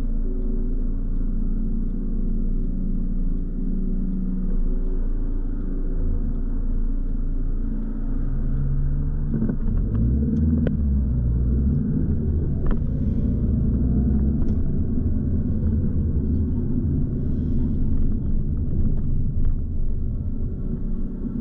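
A car being driven: a steady low rumble of engine and road, with the engine note shifting about eight to ten seconds in.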